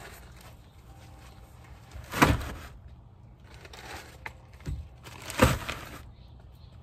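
A long nylon carry bag being lifted and shoved into a minivan's cargo area: fabric rustling and scraping, with two loud thumps, about two seconds in and again about five and a half seconds in.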